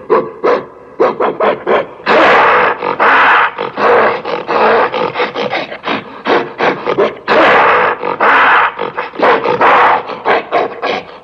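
Gorilla roaring: four long, loud, rough roars of about a second each, between quick runs of short sharp sounds at several per second.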